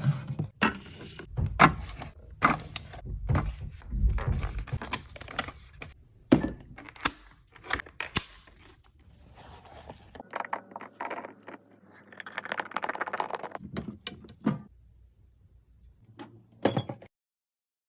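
Items being handled and set down while a fridge is stocked: a series of sharp knocks, clicks and light clatter, with a stretch of rustling about twelve seconds in.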